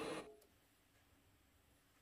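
A milling machine running steadily cuts off abruptly right at the start, leaving near silence: room tone.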